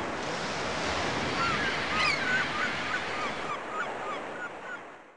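Surf breaking and washing against a rocky shore, a dense steady rush, with many short bird calls over it. The sound fades out near the end.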